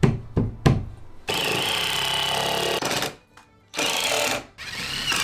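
Three sharp knocks, then a power screwdriver driving screws in bursts: one run of about a second and a half, a short one, and another that begins near the end.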